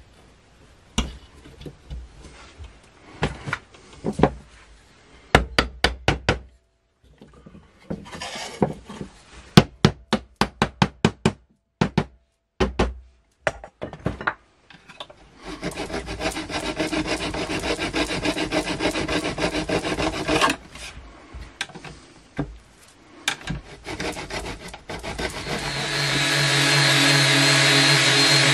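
Wooden slats knocking and clicking as they are handled and fitted onto wooden dowel pins, with a quick run of taps about ten seconds in. Then a hand-held electric sander runs over the wooden slats, once for about five seconds just past halfway and again, louder, near the end.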